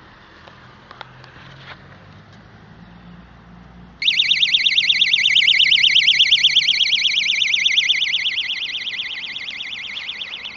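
Electronic siren switching on about four seconds in with a rapid, high-pitched warble, loudest at first and easing off a little toward the end. Before it there are only a few faint clicks.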